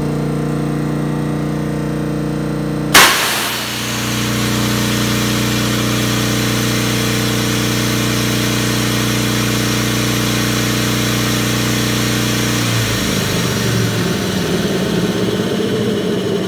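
Ship's air compressor running with a steady machinery hum. About three seconds in comes a sudden loud blast of compressed air, then a steady rush of air over the hum, whose tone shifts a few seconds before the end. This is the unloader valve venting compressed air.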